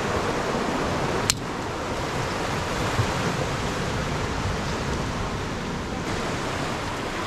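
Surf washing over a boulder shore, a steady rushing hiss of sea water, with one sharp click just over a second in.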